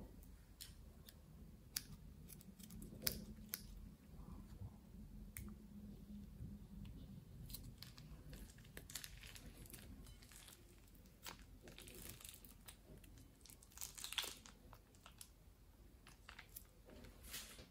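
Quiet, scattered crinkling and crackling of a plastic piping bag being squeezed and of foam-bead slime being pressed under the fingers.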